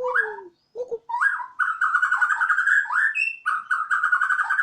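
Borneo white-rumped shama (murai batu) singing: long runs of fast, repeated chattering notes, each ending in a quick upward sweep, broken by a short pause early on and another a little past the middle.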